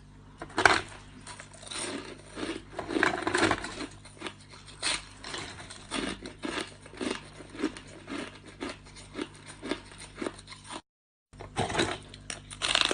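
Hard ice being bitten and chewed close to the microphone: a run of sharp crunches, roughly two a second, over a faint low hum. The loudest bites come in the first few seconds, and there is a brief cut to silence about 11 seconds in.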